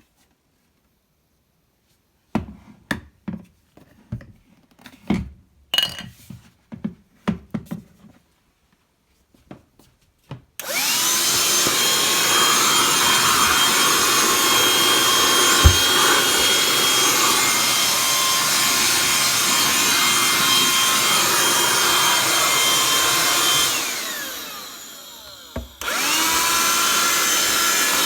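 Clicks and knocks of plastic being handled, then a BLACK+DECKER Dustbuster cordless handheld vacuum's motor switches on about ten seconds in and runs steadily with a high whine. Near the end it spins down with a falling pitch, then is switched back on and spins up again with a rising pitch.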